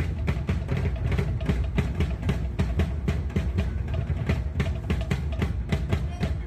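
Fast, driving live drumming from a drum ensemble, a steady run of quick strokes several times a second with deep drum hits underneath.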